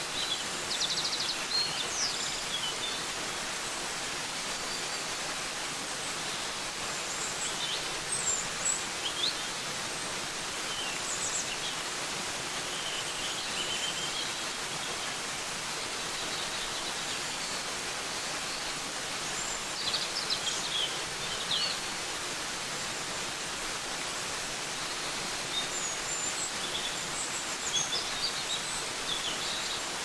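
Waterfall falling steadily into a rock pool, an even rushing hiss, with small birds chirping in short bursts over it several times.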